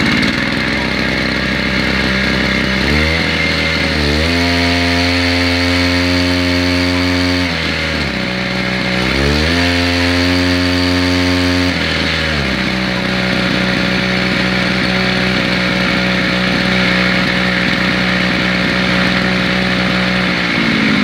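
Big-bore brush cutter engine running on the bench, revved up twice and held at higher speed for a few seconds each time, then settling back to a steady idle.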